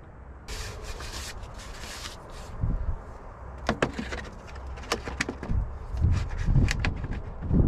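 Air filter element being handled and pushed into a tractor's air cleaner canister: a stretch of scraping and rubbing, then a series of sharp clicks and knocks as the filter meets the housing. The replacement filter is the wrong one and will not go into the housing.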